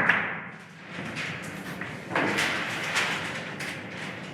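Chalk scratching on a blackboard in short strokes while writing, with the strongest run of strokes about two seconds in.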